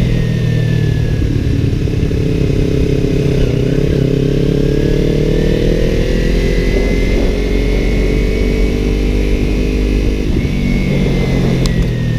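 Sport motorcycle engine running under way, its pitch rising gradually about a third of the way through, easing off later and picking up again near the end, over a steady rumble of wind on the microphone. A few sharp clicks come near the end.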